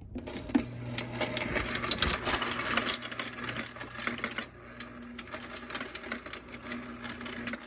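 Cheap electric coin sorter starting up and running: a steady motor hum under a dense, fast rattle and clicking of quarters being sorted.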